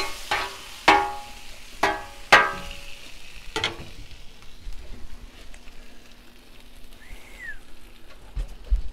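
Chicken wings sizzling on a steel flat-top griddle while a metal spatula clanks and scrapes against the cooktop, about four ringing strikes in the first few seconds; after that the sizzle carries on more quietly.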